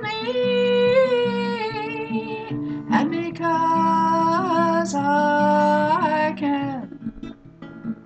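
A woman's solo voice singing long held notes over a strummed acoustic guitar. About seven seconds in, the voice and guitar die away.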